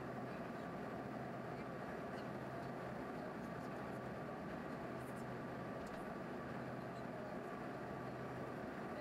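Steady cabin noise of an Embraer RJ145 regional jet in flight: an even drone of its rear-mounted turbofan engines and airflow, with a constant low hum and a fainter higher tone.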